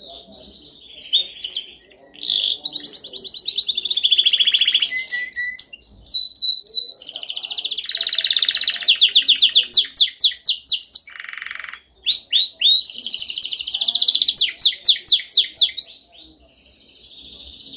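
Domestic canary singing: fast trills of rapidly repeated high notes in three long phrases, broken by short pauses and a brief harsher, noisier note just before the last phrase.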